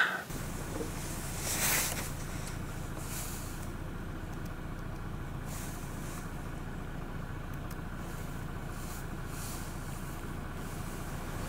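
A vehicle driving, heard from inside the cabin: a steady low road and engine rumble, with a few brief faint swishes.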